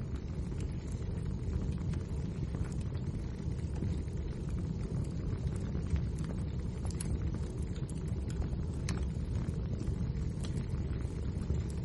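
Wood fire burning in a fireplace: a steady low rumble of the flames with scattered sharp crackles from the burning logs.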